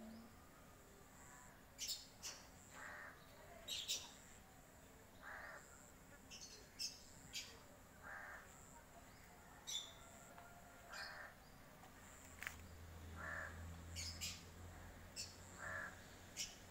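A kitten meowing, one short cry about every two and a half seconds, six in all. Sharp high chirps are scattered between the cries.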